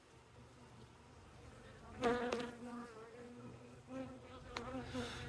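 Honey bees buzzing close by, their wingbeat hum rising in loudness about two seconds in and wavering in pitch as individual bees fly past.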